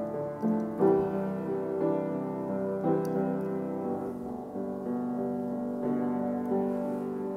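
Solo piano playing slow chords, a new chord struck about once a second and left to ring.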